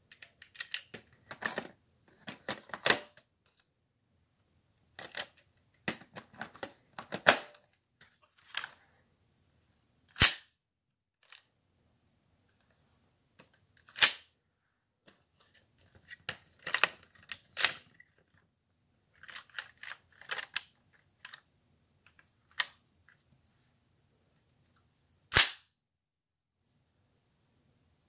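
Plastic Lego bricks of a hand-held Lego gun model clicking and rattling in short bursts as it is handled, with three single sharp plastic snaps standing out as the loudest sounds.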